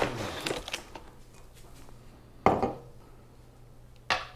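Cardboard whiskey presentation box being opened and handled, rustling, with knocks as the glass bottle and box are set on the granite countertop: the loudest knock about two and a half seconds in, another near the end.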